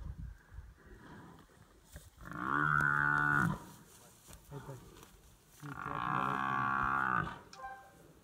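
Cape buffalo bellowing in distress while lions hold it down: two long bellows, one about two seconds in and another about halfway through.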